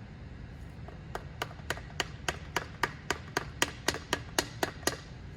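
A tool working the piston ring compressor on a piston to set it level: about fifteen sharp, even clicks, roughly four a second, starting about a second in and stopping near the end.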